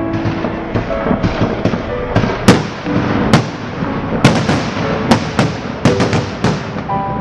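Fireworks going off in a rapid barrage of sharp bangs and crackles, several loud reports with echoing tails over a continuous crackle.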